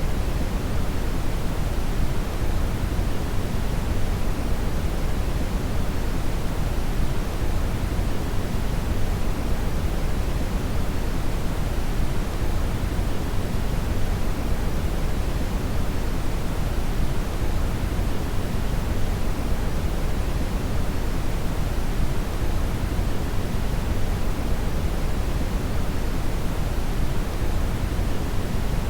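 Steady brown (red) noise: a deep, even rushing hiss, strongest in the lows, with no change.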